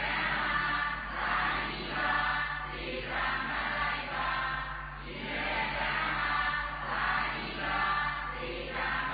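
A congregation reciting a Burmese dhamma phrase back in unison, many voices together in a slow sing-song chant, phrase after phrase.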